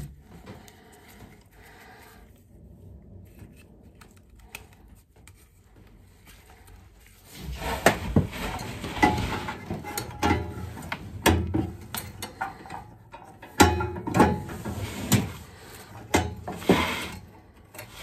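A gas burner being worked back into its slot in a steam boiler's burner compartment, metal on metal: faint handling at first, then from about seven seconds in repeated scraping and sharp clanking knocks as it is forced into place.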